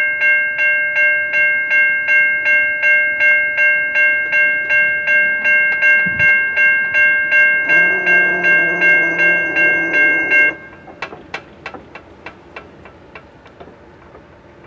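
Railroad grade-crossing bell ringing in a steady, fast rhythm of about three strikes a second. It stops suddenly about ten seconds in, and a fainter ringing fades out after it. A lower steady tone joins for a few seconds before the stop.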